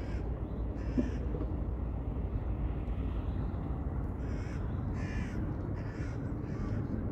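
Crows cawing: two short harsh caws near the start, then a run of four about a second apart in the second half, over a steady low rumble.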